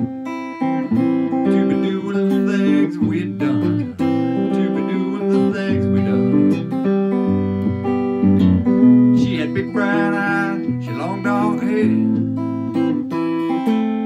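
Acoustic guitar strummed steadily, with a harmonica played in phrases over the chords from a neck holder.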